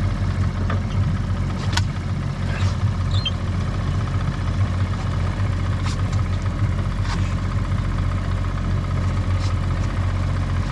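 Small boat's outboard motor idling steadily at low speed while the boat is eased into its berth, with a few sharp clicks over the hum.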